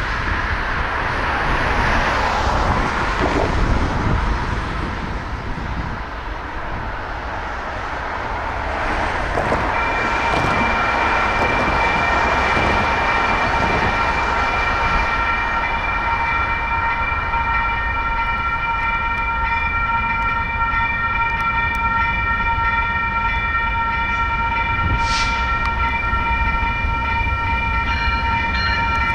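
Road traffic noise, then about ten seconds in the railroad crossing's electronic warning bells start ringing steadily as the signals activate. More bell tones join near the end.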